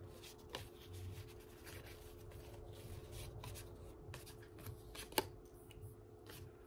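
Baseball trading cards being flipped through by hand: faint, irregular rustles and light flicks of card stock, with one sharper click about five seconds in, over a faint steady hum.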